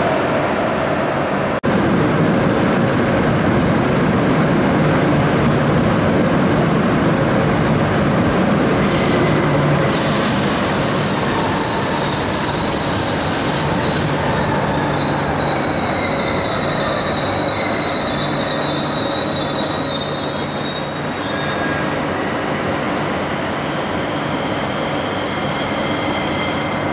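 Renfe Cercanías electric commuter train moving along the platform, its running noise steady throughout. Its wheels squeal high and steady from about ten seconds in until just past twenty seconds.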